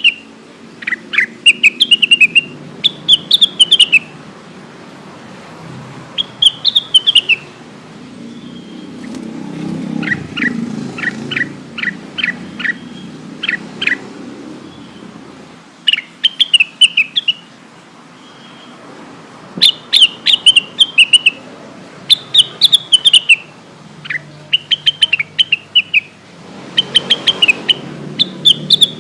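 Cucak wilis (Rengganis), a leafbird, singing: bursts of rapid, sharp chirps that fall in pitch, each phrase about a second long with pauses between, and a run of quick separate notes near the middle. A faint low rumble sits underneath, swelling a couple of times.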